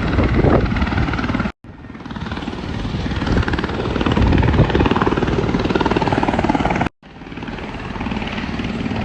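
Helicopter flying close by, its rotor beating fast over the engine noise, in three short clips with abrupt cuts about a second and a half in and about seven seconds in.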